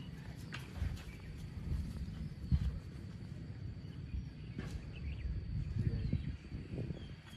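Outdoor ambience with irregular low thuds and a few faint clicks, over a faint steady high tone.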